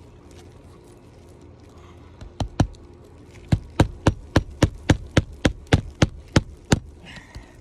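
Hammer driving a roofing nail into an asphalt shingle by hand: two light setting taps, then a steady run of about a dozen sharp blows, roughly three a second.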